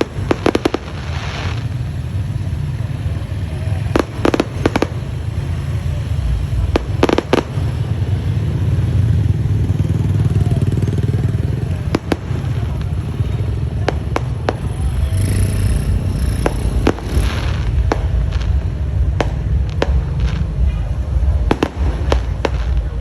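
Fireworks going off: a string of sharp bangs, some in quick clusters, with a crackling burst about two-thirds of the way through, over a steady low rumble.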